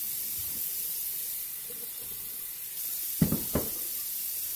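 Onions sizzling in a pot with a steady hiss while being stirred. About three seconds in, the spoon knocks against the pot two or three times.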